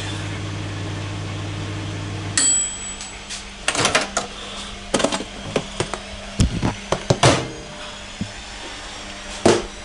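Morphy Richards dial-timer microwave oven running with a steady hum, which cuts off about two and a half seconds in as a short bell dings at the end of the timer. Then come a series of clicks and knocks as the door is opened and a plastic food container is taken out.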